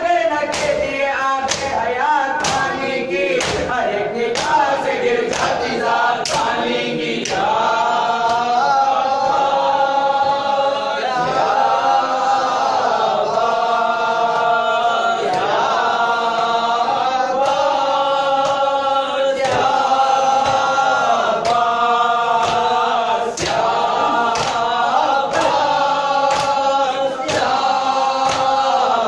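Men chanting a noha (Shia lament) together in unison, with a steady beat of sharp hand strikes about once a second: matam, rhythmic chest-beating in mourning.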